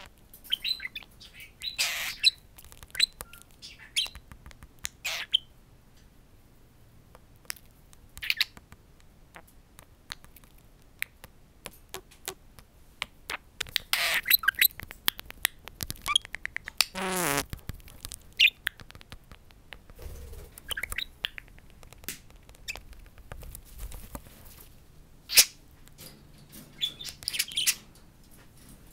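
Budgerigars chirping and chattering in short scattered bursts, with sharp clicks from their beaks and feet tapping on a glass hand mirror. About halfway through, one longer sound slides steeply down in pitch.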